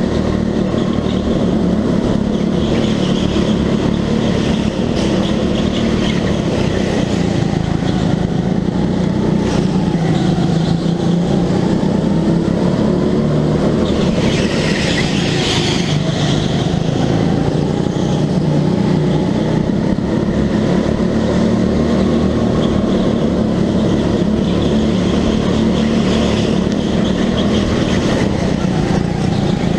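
Go-kart engine running hard, its pitch rising and falling as the kart speeds up and slows. A short hissing burst comes about halfway through.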